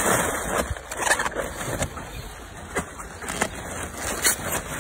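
Large plastic bag rustling and crinkling in irregular bursts as inflated balloons are pulled out of it.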